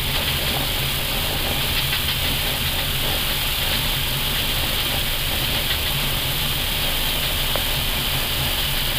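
Steady cockpit noise of an Airbus A320 slowing on the runway after touchdown: an even rushing hiss over a constant low rumble from the engines and the rollout.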